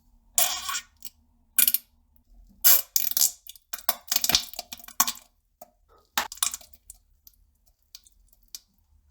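A person defecating on a toilet: short, wet, spluttering farts and splatters in irregular bursts, some coming in quick clusters, the loudest about half a second in and again near three seconds in.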